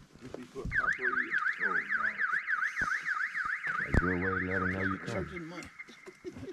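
Electronic vehicle siren or alarm: a high yelp sweeping up and down about four times a second for about four seconds. A low horn blast joins it for about a second near the end.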